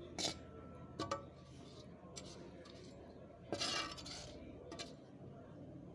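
A spatula scraping and clinking against a frying pan a few times, with one longer scrape a little past halfway, while pieces of pangas fish fry in oil.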